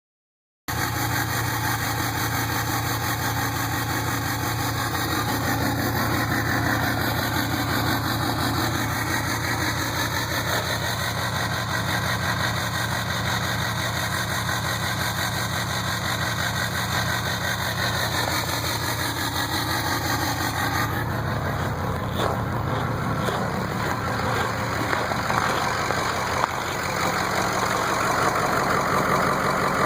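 2007 Ford 6.0 Powerstroke V8 turbo-diesel idling at a steady speed. One injector is dead and six more are failing. About two-thirds of the way through, the tone shifts and a few sharp clicks come through.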